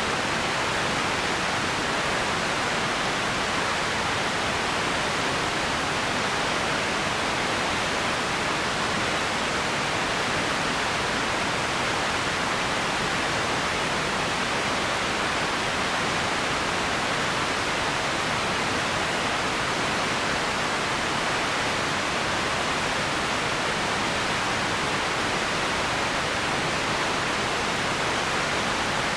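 Empty ambience noise: a steady, even hiss with no events or changes, strongest in the middle and upper range.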